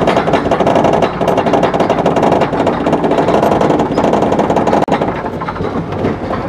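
Steel roller coaster train on its lift hill: a fast, even clatter of the lift chain and anti-rollback ratchet, lighter from about five seconds in as the train nears the crest.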